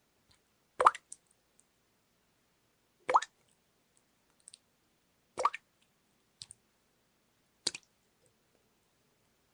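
Water dripping: four distinct drops falling about every two and a quarter seconds, each a sharp plop with a small quick splash after it, and two fainter drips in between.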